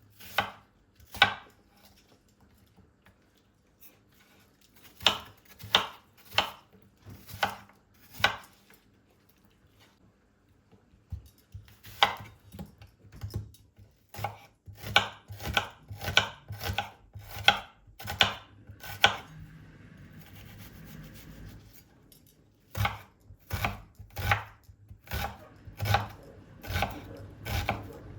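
Knife chopping food on a cutting board: sharp knocks, a few a second apart at first, then quicker runs of about two a second, with a short stretch of softer rustling noise about twenty seconds in.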